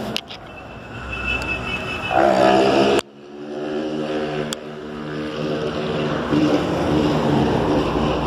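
Motor vehicle engine speeding up in street traffic, its pitch rising, over road and wind noise. The sound breaks off sharply about three seconds in, then an engine climbs slowly in pitch again.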